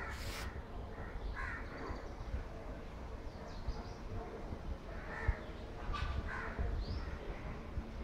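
Crows cawing several times, with a cluster of calls in the second half, over a steady low background rumble.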